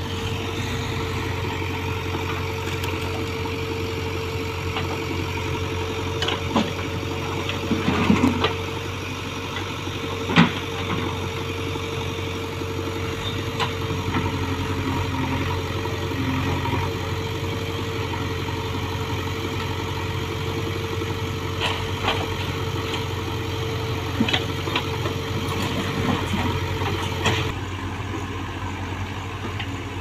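Diesel engines of a JCB 3DX backhoe loader and farm tractors running steadily, with a steady higher hum that stops near the end. A few short sharp knocks and clanks come through, the loudest about ten seconds in.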